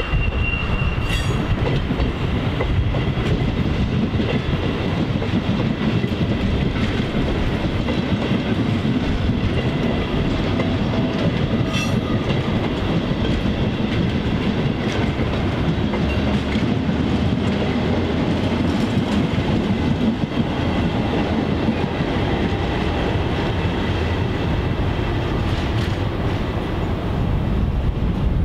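Electric multiple-unit commuter train passing close by, a steady loud rumble with wheels clattering over rail joints and a faint high whine; a couple of sharp clicks stand out, about a second in and near the middle.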